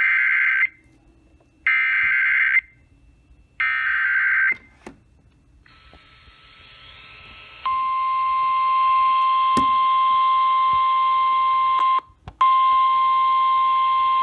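NOAA Weather Radio Emergency Alert System signalling. First come three short bursts of SAME header data tones, each just under a second long and about a second apart. About 8 s in, the steady single-pitch weather radio alert tone starts over radio static, dropping out for a moment near the end.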